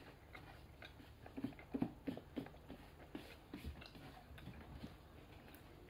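Faint, irregular clicks and taps of someone chewing a chocolate Milo ball and fingers picking at Milo powder on a plastic plate. The loudest clicks come a little under two seconds in.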